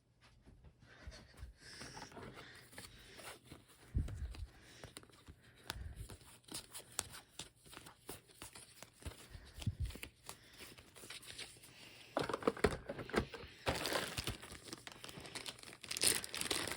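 Board game contents and packaging being handled by hand: crinkling and rustling with scattered light knocks, louder over the last few seconds.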